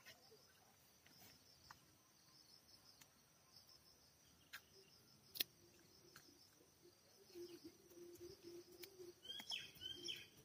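Near silence with faint insect chirping and a few soft clicks, plus a short faint bird chirp near the end.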